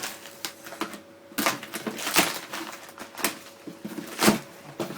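Paper and packaging being handled while a parcel is unpacked: a run of irregular rustles and crackles, the loudest about four seconds in.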